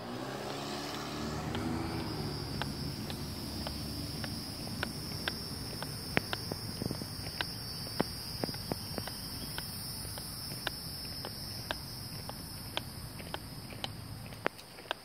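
Footsteps on asphalt at a steady walking pace, about two a second, over insects buzzing steadily. A low rumble sits underneath and stops near the end.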